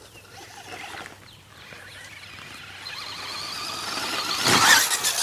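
Brushless electric RC truck's motor whining and rising in pitch as it speeds up and comes closer, loudest about four and a half seconds in, followed by a few sharp knocks near the end.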